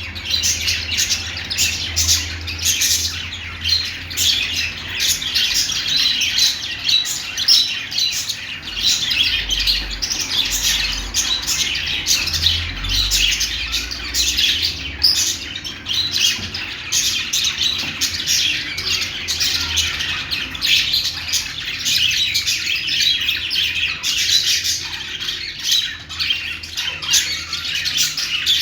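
Budgerigars warbling and chattering without a break, a dense stream of rapid chirps mixed with squawks.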